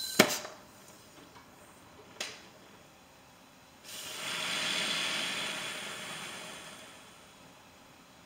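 A sharp click just after the start and another about two seconds in. Then an air-pressurized A/C flush canister hisses as it discharges through the condenser line, starting suddenly about four seconds in and tapering off over about three seconds as the can runs empty.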